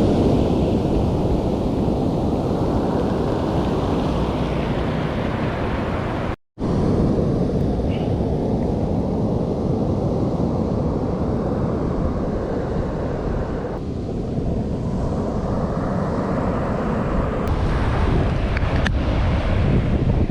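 Wind buffeting the microphone over surf breaking on the beach: a steady, loud rushing noise. It cuts out completely for a moment about six seconds in.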